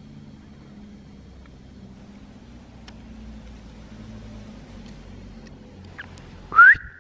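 A low steady background rumble, then near the end one short, loud rising whistle: a person whistling to call a dog back.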